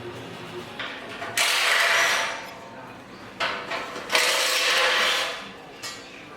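Power tool run in two bursts of about a second each, with a few clicks and knocks around them.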